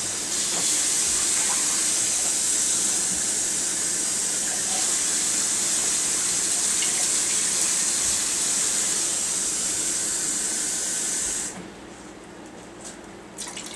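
Water being poured to fill a cook pot with two cups of water: a steady splashing rush that stops suddenly about eleven and a half seconds in.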